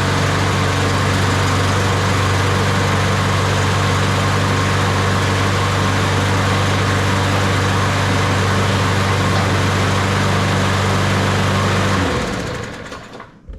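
Toro 21311 push mower's Briggs & Stratton 140cc single-cylinder engine running steadily, then shut off and winding down to a stop near the end. It now runs after a fuel system and carburetor cleaning cured its no-start.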